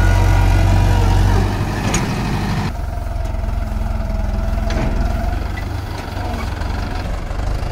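Mahindra 475 DI tractor's diesel engine running under load as the rear tyres churn through soft field soil pulling a trailer; it is louder for the first second or two, then eases off a little.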